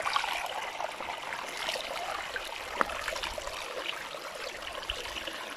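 Shallow stream water trickling and splashing over stones as it runs through a mesh-net fish trap, with one small knock about three seconds in.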